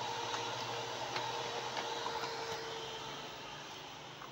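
Inverter welding machine's cooling fan running with a steady whirr and a faint steady hum, the sound fading away over the last second or so.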